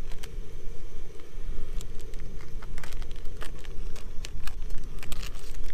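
Wind buffeting the microphone as a steady low rumble, with scattered crackles and clicks of a plastic bacon packet being handled as rashers are peeled out of it.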